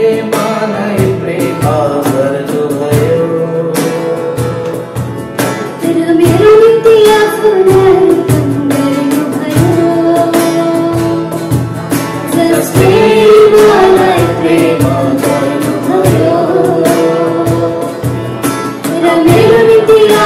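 A woman singing a Nepali Christian worship song into a microphone, over a strummed acoustic guitar. Her voice holds and bends long notes, with the guitar strums keeping a steady beat.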